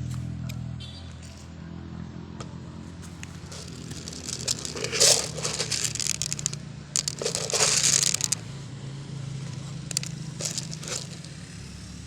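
Crinkling, crackling rustles in two main bursts, about five and about eight seconds in, with scattered smaller crackles between, over a steady low hum.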